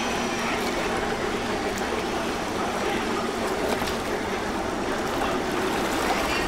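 Steady rush of river water along the hull of a moving boat, with the boat's engine running underneath.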